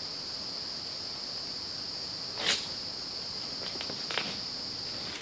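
Crickets chirring in a steady, continuous high-pitched chorus, with one brief sharp tap about halfway through.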